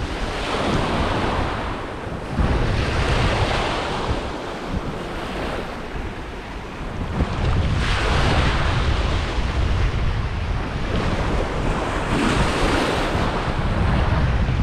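Small waves breaking and washing up on a beach at the water's edge, each wash swelling and fading every few seconds, with wind buffeting the microphone as a low rumble.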